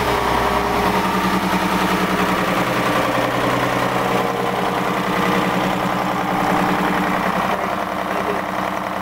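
Detroit Diesel 6V53 two-stroke V6 marine diesel engine idling steadily, just started.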